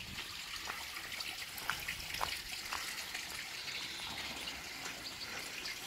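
A thin stream of water trickling down a tarmac lane: a steady soft trickle with scattered small clicks.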